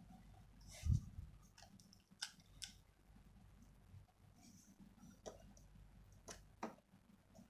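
Faint, scattered clicks and light taps of a small screwdriver and screws on a laptop's plastic case during reassembly, with a soft dull thump about a second in.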